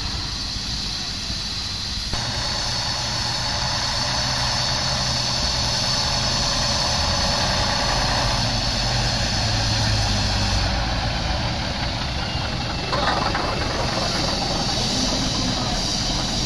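Vintage road vehicles running slowly along a road: a steam traction engine towing a living van, with a vintage single-deck bus following. A steady low engine drone gets louder about two seconds in, and there is a sudden louder shift about thirteen seconds in.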